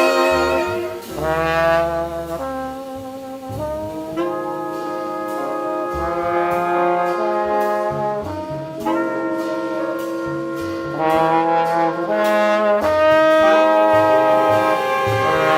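Jazz septet playing an ensemble passage: trombone, trumpet and saxophones sounding long held notes in harmony over a walking bass line, the chords changing every second or two.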